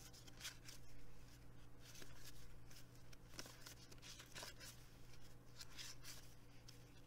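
Faint flicking and sliding of cardboard baseball cards as a hand-held stack of 1991 Bowman cards is thumbed through one card at a time, over a low steady hum.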